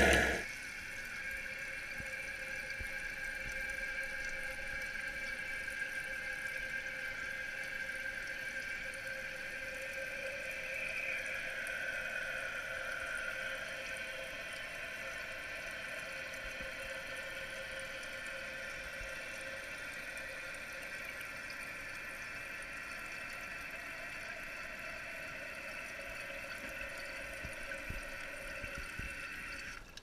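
Toilet tank fill valve running as the tank refills, heard from inside the tank: a steady hiss of inflowing water with a high whine.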